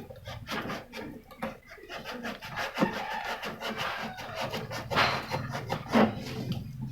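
Packing material being pulled and rubbed against the cardboard box as the griller is unpacked: a run of scraping and rustling with scattered knocks, the sharpest about five and six seconds in.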